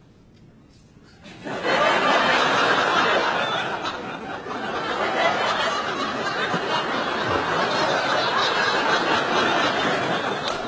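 Studio audience laughing, breaking out suddenly about a second in and carrying on throughout.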